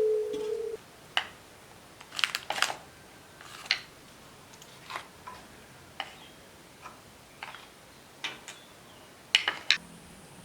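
Scattered light clicks and knocks of things being handled while cooking, about a dozen at irregular intervals, a few in quick pairs. A cooing tone fades out under a second in.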